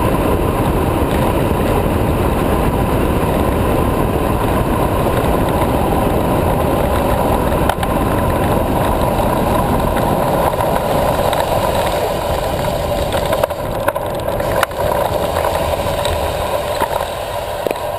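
Wind rushing over the camera microphone and tyre noise on the road as a carbon high racer recumbent bicycle descends fast, with a steady whine running through it. It gets somewhat quieter over the last few seconds, with a couple of short clicks.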